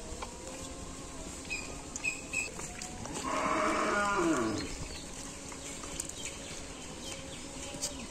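A cow moos once, a single call of about a second and a half that drops in pitch as it ends.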